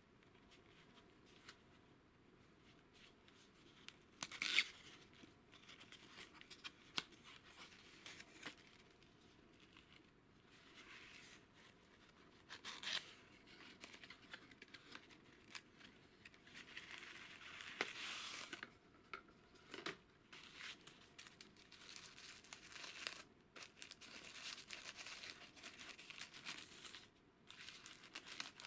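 Cardboard valve box being opened by hand: scattered scrapes and snaps of the card, the sharpest about four and a half seconds in, then denser rustling and crinkling of the paper wrapping in the second half.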